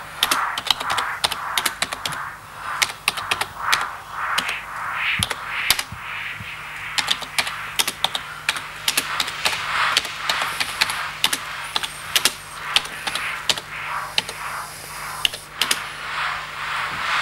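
Typing: quick, irregular key clicks in runs with short pauses, over a low steady hum.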